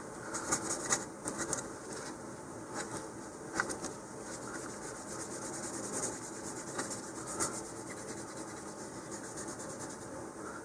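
Tissue dampened with alcohol rubbing along fiberglass rocket fin fillets, cleaning away stray adhesive. Faint scratchy wiping strokes, busiest in the first couple of seconds, then a few lone strokes over a softer rub.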